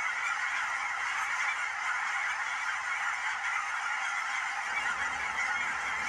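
A large flock of cackling geese calling all at once, a dense, continuous chorus of high honks with no break.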